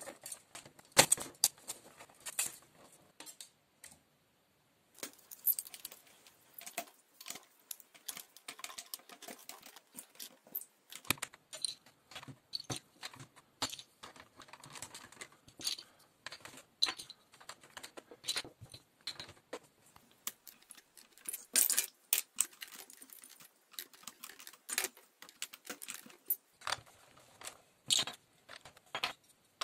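Small plastic Exin Castillos castle bricks clicking and clattering as they are handled and pressed into place on the castle walls, in irregular sharp clicks throughout, cutting out briefly about four seconds in.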